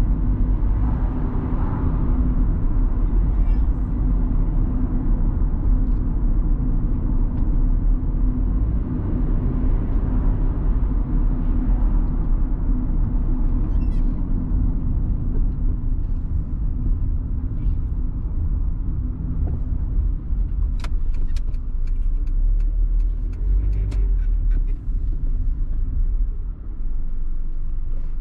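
A car driving in city traffic, heard from inside the cabin: a steady low rumble of engine and road noise. A few light clicks come about two-thirds of the way through.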